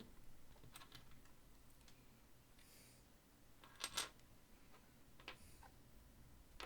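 A few light clicks and taps of small hard objects being handled on a work surface, the loudest a quick double click about four seconds in.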